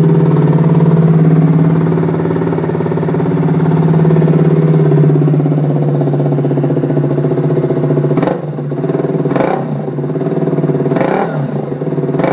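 KTM Duke 125's single-cylinder four-stroke engine running through its modified stock exhaust, idling steadily, then blipped three times near the end with quick rises and falls in revs.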